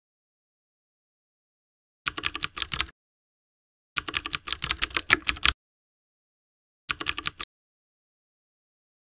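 Computer keyboard typing sound effect: three quick runs of key clicks, the first about two seconds in, a longer one about four seconds in and a short one about seven seconds in, with dead silence between them.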